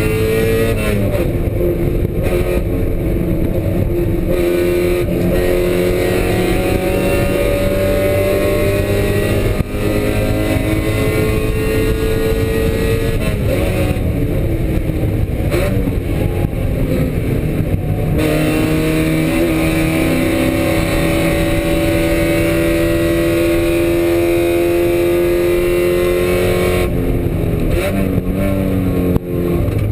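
Spec Miata's inline-four race engine at full pace, heard from inside the cockpit. Its note climbs slowly through long pulls and falls away sharply a few times, about a second in, around the middle and near the end, as the driver lifts off and changes down for corners.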